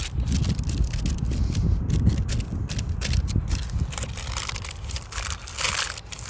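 Hands pressing dough across a paper-lined metal baking tray: the baking paper rustles and crinkles with many small clicks and scrapes, over a low rumble, with a louder crinkle near the end.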